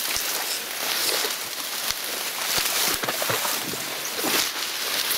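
Tall marsh grass swishing and rustling against the camera and clothing as someone pushes through it on foot, with a few dull thumps.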